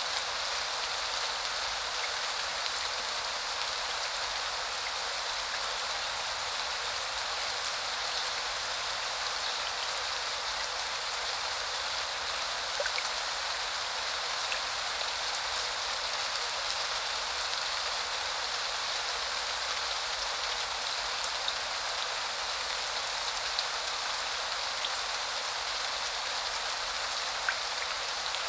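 Steady spring rain falling, an even hiss of many drops with a few sharper drip ticks scattered through.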